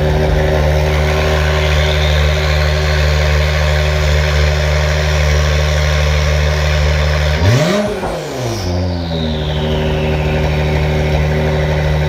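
2017 Acura NSX twin-turbo V6 idling steadily through an ARMYTRIX titanium exhaust. About seven and a half seconds in it gives one quick rev blip that rises and falls back to idle, with a high whine fading away after it.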